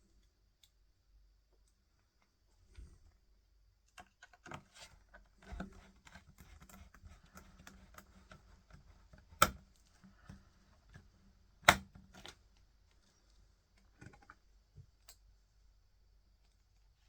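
Small clicks, taps and scrapes of hands handling a laptop, with two sharp, loud clicks about two seconds apart in the middle.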